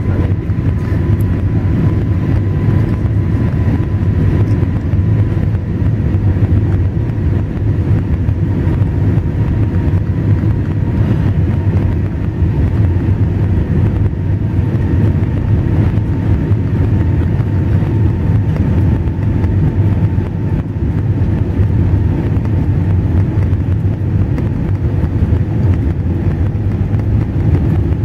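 Airbus A320 cabin noise on approach: a steady deep rumble of engines and airflow, with a faint steady whine that drifts slightly lower in pitch.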